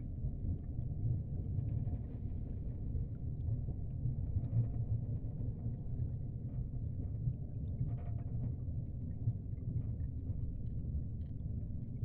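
Steady low rumble of aquarium water moving in the tank, with a few faint ticks.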